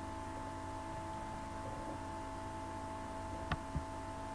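Steady electrical hum with a few faint constant tones in the recording's background. Two quick computer-mouse clicks come close together about three and a half seconds in, closing the slide show.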